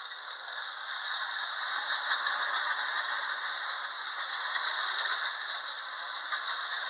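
Tin-plate Hafner toy train with loose couplings clattering along its metal track as it goes by: a steady clickety-clack rattle that grows louder as the train comes close, then eases slightly near the end.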